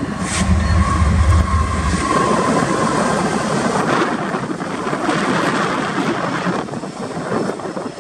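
A Union Pacific train's lead diesel locomotives passing close by: a GE ES44AC leading and EMD SD70-series units trailing. A deep engine rumble is strongest in the first two seconds, then gives way to the steady rush and rattle of steel wheels on the rails as the trailing units and the first container cars go by.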